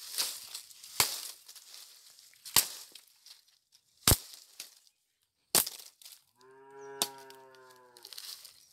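A small hand sickle chopping into the fibrous leaf sheaths of a coconut palm heart. Five sharp chops come about every second and a half, with the ripping of fibre torn off between them. Near the end a long, low, steady call lasts about a second and a half.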